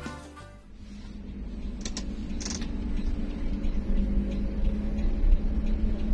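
Coach bus engine running, heard from inside the cabin as the bus rolls forward: a low rumble with a steady hum that grows louder. Two faint clicks come about two seconds in, followed by a short hiss.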